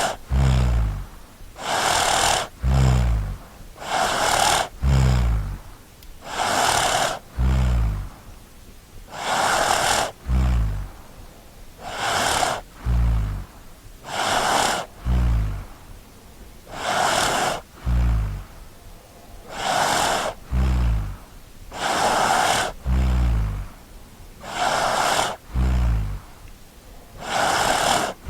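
A child snoring steadily in sleep, about one breath every two and a half seconds. Each breath is an airy rush followed by a low, rattling snore that falls in pitch.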